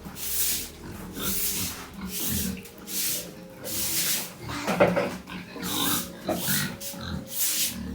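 Pigs grunting and squealing in their pens over background music with a steady shaker beat.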